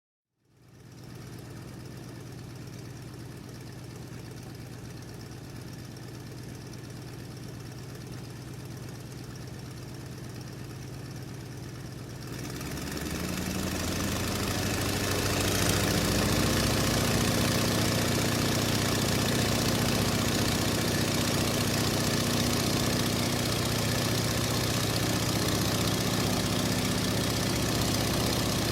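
Car engine idling steadily. About twelve seconds in it gets louder and a little higher in pitch over a few seconds, then settles into a steady, louder run.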